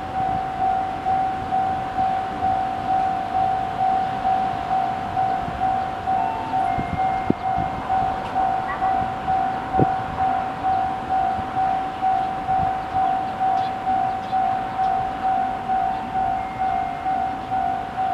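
Japanese railway level-crossing warning bell ringing, a single electronic tone repeating evenly, switched on as a train approaches. Two short knocks sound about seven and ten seconds in.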